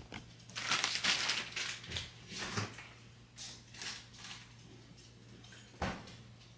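Faint rustling and a few soft knocks as a handheld camera is handled and set down on a kitchen counter, over a low steady hum.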